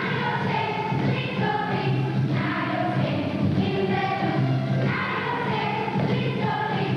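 A song: a group of voices singing together over instrumental backing music.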